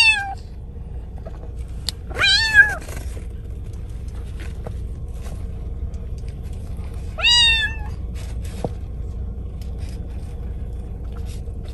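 Bengal kitten meowing from inside a mesh pet carrier: three drawn-out meows a few seconds apart, each rising then falling in pitch, fretting at being shut in the carrier in the car. A steady low car hum runs underneath.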